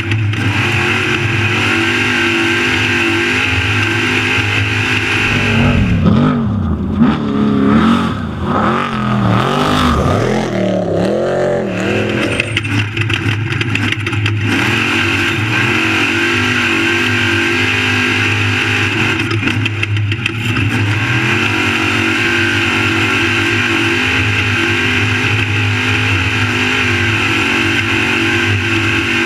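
Off-road desert race truck engine running hard at steady high revs. Between about six and twelve seconds in, the revs swing rapidly up and down several times.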